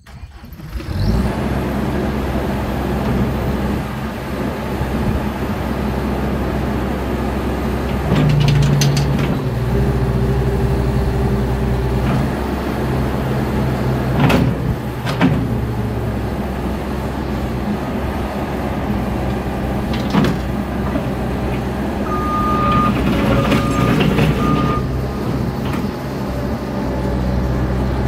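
ASV RC60 compact track loader's diesel engine starting about a second in and then running steadily, its speed rising around eight seconds in as the boom is worked. A few sharp clanks come from the loader about halfway through, and a few short beeps sound near the end.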